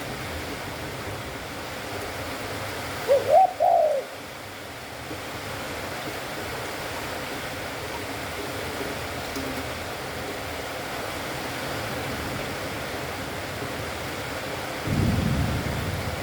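Spotted dove cooing once, a short three-note phrase that rises and falls, about three seconds in, over a steady hiss. A louder low rumble comes in near the end.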